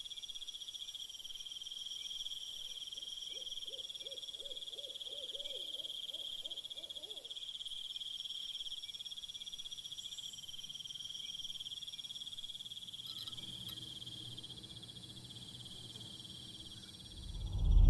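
Night chorus of crickets trilling steadily, with a frog croaking about ten times in quick succession a few seconds in. A low hum enters in the second half, and a loud low rumble swells up sharply right at the end.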